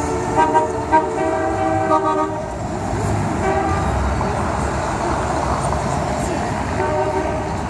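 Car horns honking in steady held blasts, the longest in the first couple of seconds and shorter ones a little later, over the low rumble of passing cars and street noise.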